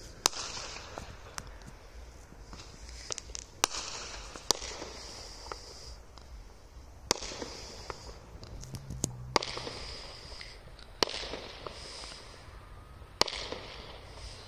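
Aerial fireworks bursting: about seven sharp bangs a second or more apart, most followed by a fizzing crackle as the stars break.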